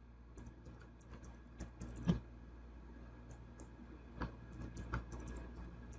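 Computer keyboard typing: irregular, faint keystroke clicks as a password is entered twice, with a couple of louder clacks about two and four seconds in.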